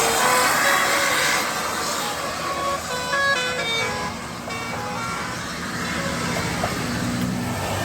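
Bus telolet horn playing a quick tune of short tones at changing pitches over passing traffic noise; the tune dies away about four seconds in.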